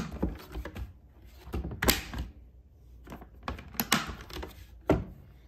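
StopBox handgun box being worked by hand: a series of sharp clicks and knocks as its mechanical push-button lock is pressed and the spring-loaded lid pops open and is pushed shut to latch, with one loud knock near the end.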